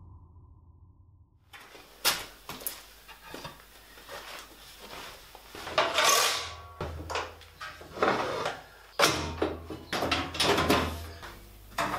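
Handling clatter from a combination jointer-planer being reset: a string of irregular metal clunks, knocks and rattles as its hinged jointer table and chip hood are swung up and set for thickness planing. The machine itself is not running.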